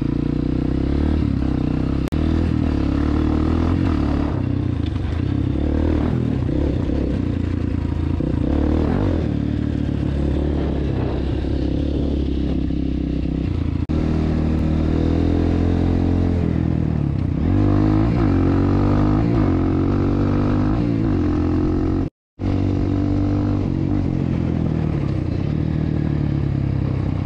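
Off-road motorcycle (dirt bike) engine running under load on a trail ride, its pitch rising and falling as the throttle is worked. There is a momentary dropout to silence near the end.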